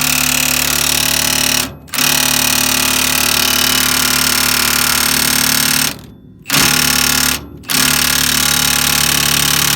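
Pneumatic air hammer running in four long bursts with short pauses between, hammering at a rusted suspension part on the truck's rear axle that will not come out.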